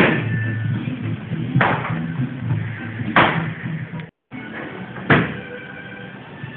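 Background music with a bass line and heavy drum hits about every second and a half to two seconds, broken by a short gap of silence a little past the middle.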